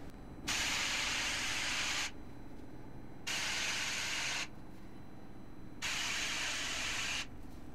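Steady white-noise hiss from a handheld sound source, switched on and off: three bursts of about a second and a half each, starting and stopping sharply, with short gaps between them.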